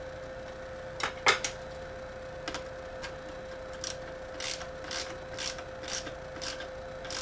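Screwdriver driving a screw tight into a laser mount. A few sharp clicks come about a second in, then a run of short rasping strokes, about two a second, as the screw is turned home until it is tight.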